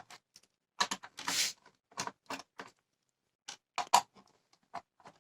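Irregular small clicks and short scrapes of a screwdriver working screws out of a laptop's plastic base, with one longer rasp about a second and a half in.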